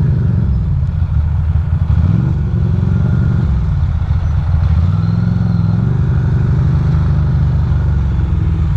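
Ducati Monster's V-twin engine running at low speed in traffic, its pitch rising with the throttle about two seconds in and again about halfway through.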